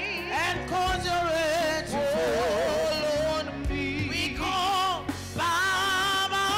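Gospel worship song: a voice singing held notes with a wide vibrato over electronic keyboard accompaniment.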